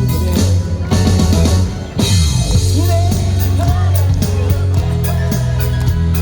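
Live band music with drum kit, bass guitar and a wavering melodic line. The music dips briefly about two seconds in, then comes back in full.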